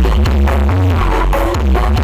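Electronic dance music played very loud through a parade sound-system rig, with heavy bass and a steady beat.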